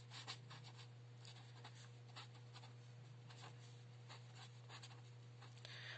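Marker pen writing a word on paper: faint, quick scratching strokes, over a steady low hum.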